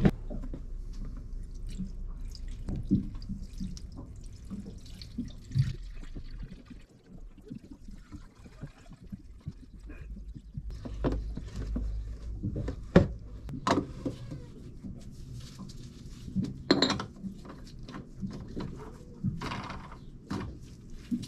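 Diesel being poured from a plastic jug into a Racor fuel filter housing, refilling it after a filter change, with trickling and filling sounds. A few sharp knocks from handling the jug and the filter, the loudest about two-thirds of the way through.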